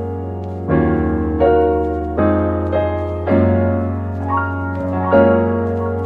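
Background music: piano chords struck about once a second over a steady bass.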